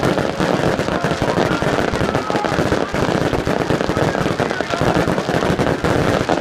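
Dense fireworks barrage: many aerial shells bursting and crackling in rapid, continuous succession with no pause.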